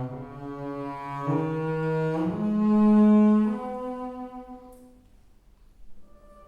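Cello and double bass playing long bowed notes that step upward in pitch, swelling to a loud held note about three seconds in, then dying away. A short, quieter note follows near the end.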